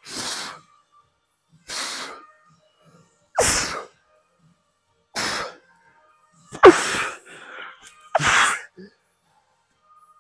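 A weightlifter's sharp, forceful breaths, one with each dumbbell curl rep, six in all about every one and a half seconds. The last three carry a short strained grunt that falls in pitch.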